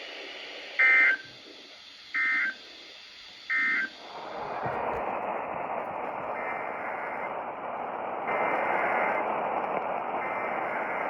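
Three short bursts of Emergency Alert System digital data tones, the end-of-message (EOM) signal that closes the warning, a little over a second apart. From about four seconds in, steady radio static hiss follows.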